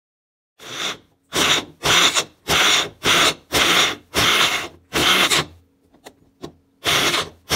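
Personal bullet-style blender pulsed in about nine short bursts, its blades chopping chunks of mango, habanero, onion and garlic into a purée. There is a pause of about a second and a half before the last two bursts.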